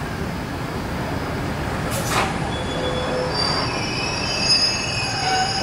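Heritage passenger carriages rolling along a station platform, their wheels squealing on the rails in high, steady tones from about three and a half seconds in, over a low rumble. A brief hiss about two seconds in.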